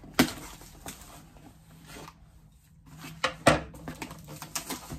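A cardboard box and its packaging being handled and pulled open: scattered rustles, scrapes and knocks, the loudest knock about three and a half seconds in.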